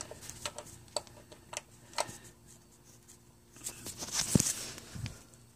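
Socket wrench clicking in separate sharp clicks on the oil pan drain plug, which will not come loose; then a short scuffling noise with a thump about four seconds in.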